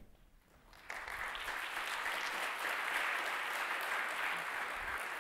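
Large seated audience applauding, the clapping starting suddenly about a second in and holding steady.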